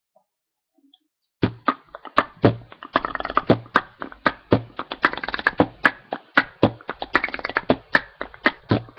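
A rhythmic percussive beat of sharp hits, a few a second with low thumps on many of them and some pitched notes between, starting about a second and a half in as the intro to a Greek pop song.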